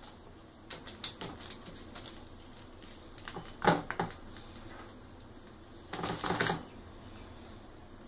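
White-eyed conure bathing in a shallow dish of water on a metal tray: scattered light taps and clicks, then two short flurries of wing-flapping and splashing, one a little under four seconds in and one about six seconds in.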